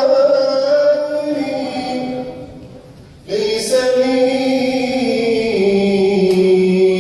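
Male vocalist singing an Arabic nasheed in long, held, ornamented notes; one phrase fades out just before the middle and the next begins about three seconds in.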